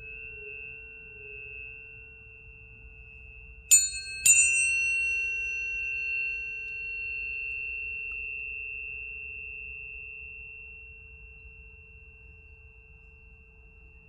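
Tuning forks ringing with clear, steady tones. A fork is struck twice in quick succession about four seconds in, giving a bright metallic clang. The tone then rings on and slowly fades.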